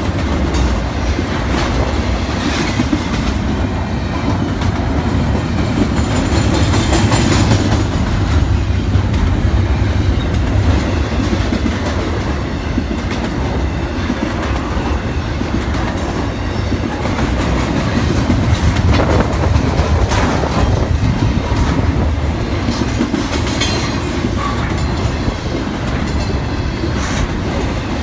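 CSX intermodal freight train rolling past: a steady loud rumble of wheels on rail with clickety-clack from the rail joints, and a couple of brief high squeals from the wheels.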